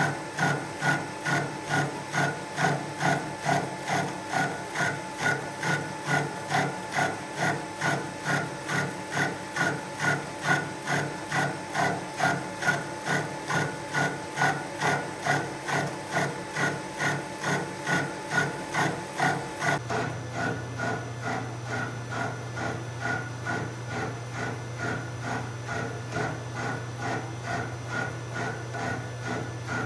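Sheldon Vernon horizontal mill's arbor-mounted milling cutter taking a 0.100-inch-deep cut, with a rhythmic pulse about one and a half times a second, which the machinist puts down to the cutter running a little off center or a slightly bent arbor. About two-thirds of the way through, the pulsing weakens and a steady low hum comes to the fore.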